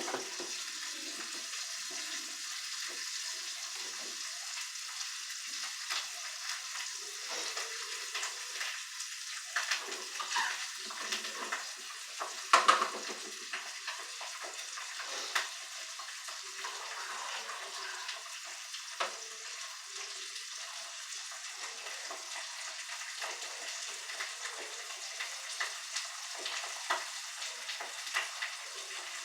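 An egg frying in margarine in a pan, sizzling steadily, with occasional light clicks and taps, the sharpest about twelve seconds in.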